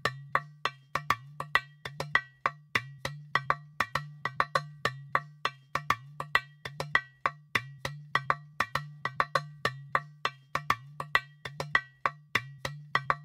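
Background music: a quick, even beat of short percussive clicks over a pulsing low bass line.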